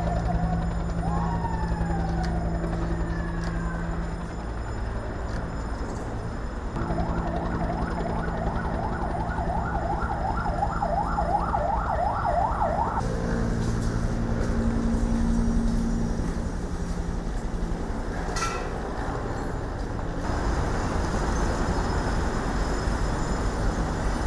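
Emergency vehicle sirens over the low rumble of vehicle engines: wailing glides at first, then a fast yelping siren from about seven to thirteen seconds in.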